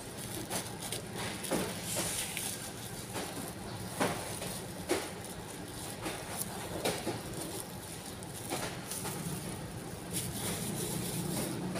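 Thin clear plastic food bag crinkling and rustling as it is handled, opened and squeezed empty, with irregular sharp crackles.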